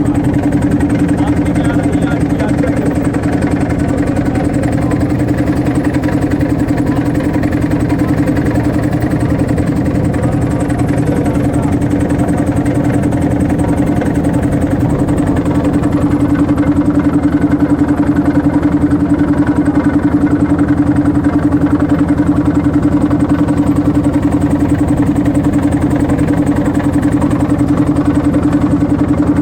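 A motorboat's engine running steadily at an even speed, a constant hum that holds one pitch throughout.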